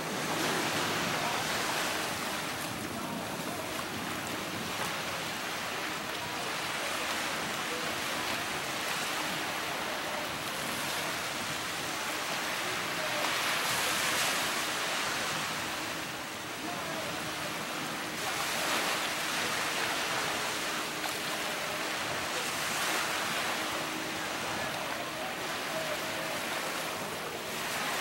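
Small waves breaking and washing up on a sandy shore. The surf swells and falls back every four to five seconds.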